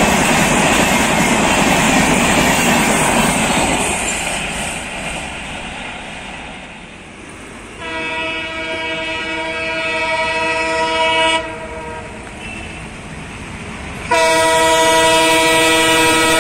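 Loud rolling clatter of a passing train's LHB coaches, fading out about four seconds in. Then an approaching WDM-3D diesel locomotive sounds two long blasts of its multi-tone horn, the second louder and starting about three seconds after the first stops.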